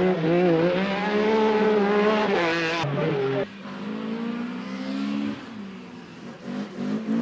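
Lancia Fulvia HF rally car's V4 engine revving hard, its pitch rising and falling between gears and climbing steeply just before it cuts off abruptly about three and a half seconds in. A quieter engine note follows and builds again near the end.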